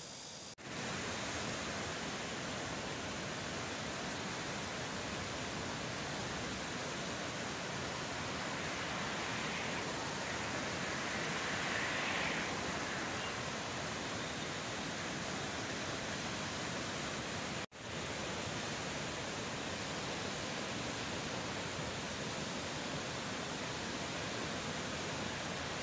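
Muddy floodwater rushing down a swollen river: a steady, even rushing noise that cuts out briefly just after the start and again about two-thirds of the way through.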